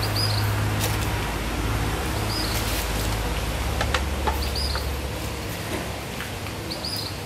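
A small bird chirps a few times, short and high, over a steady low hum, with light clicks and rustles as a tortilla and foil-wrapped food are handled.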